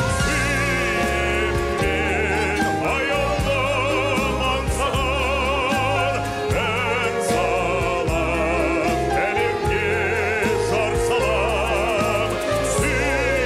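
Live orchestral music with a man singing in an operatic style, his long held notes carrying wide vibrato over the orchestra and a pulsing bass line.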